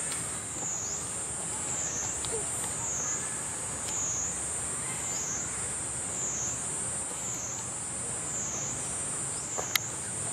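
A chorus of cicadas makes a high, steady buzz that swells and fades in a regular pulse a little more than once a second. A sharp click comes near the end.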